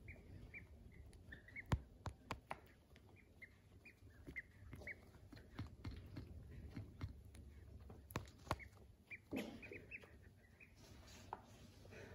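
Ducklings peeping softly: many short, high peeps a few a second. A few sharp taps stand out, the loudest about two seconds in and two more about eight seconds in.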